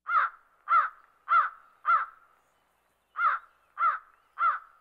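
A crow cawing: four caws about half a second apart, a pause of over a second, then three more at the same pace.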